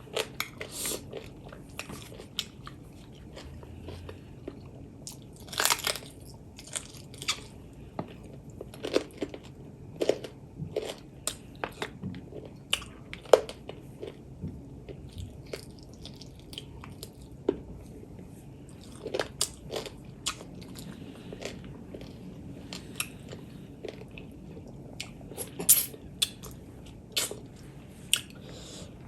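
A person chewing and biting food close to the microphone, with irregular short sharp mouth clicks.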